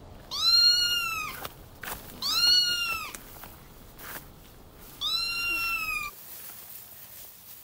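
Kitten meowing three times: loud, high-pitched cries about a second long each, rising then falling in pitch, a second or two apart.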